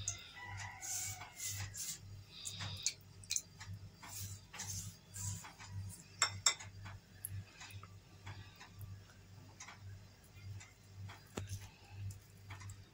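Faint soft clicks and taps of a silicone pastry brush dabbing water onto strips of cookie dough on a silicone mat, and of hands handling the dough, over a low hum that pulses about two to three times a second.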